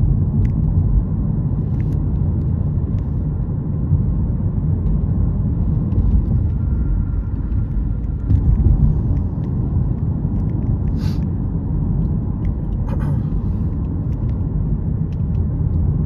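Steady low rumble of road and engine noise inside a moving car's cabin while driving. Two short sharp noises come about eleven and thirteen seconds in.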